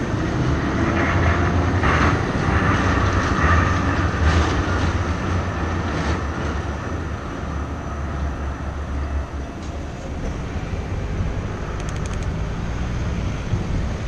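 Articulated city tram passing close by on its rails and moving off: a low rumble with wheel-on-rail noise, loudest in the first few seconds and dying away after about nine seconds into steady street background.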